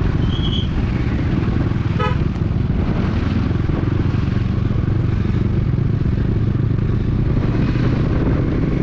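Motorcycle engine running steadily under way, with a short vehicle horn toot about two seconds in.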